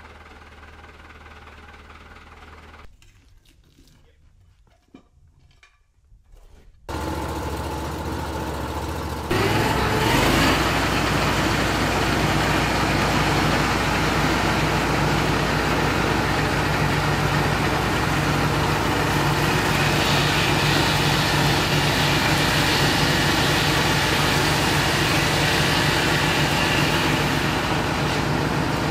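Petrol engine of a Peterson automated swingblade sawmill running. It comes in loud about 7 s in, revs up sharply a couple of seconds later, then holds steady at high speed. Before that there is a fainter steady engine sound and a short near-quiet gap with a few clicks.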